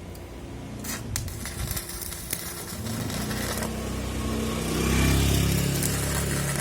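Welding arc crackling and sizzling, building up and loudest about five seconds in, over a low hum. This is typical of a repaired inverter stick welder striking an arc on a test weld.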